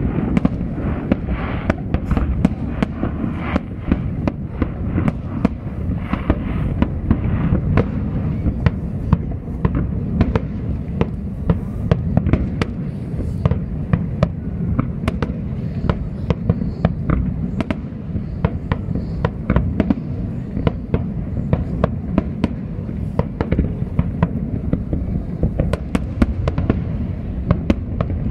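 Aerial fireworks display in full barrage: a rapid, unbroken run of sharp cracks and pops over a constant low rumble of shell bursts.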